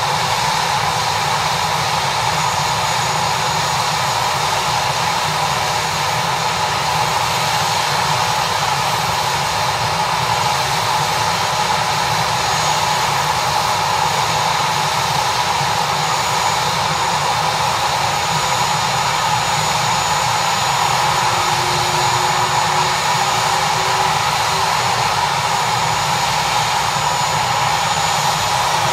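Air ambulance helicopter's turbine engines and rotor running steadily and loud, with a thin high whine over the rush.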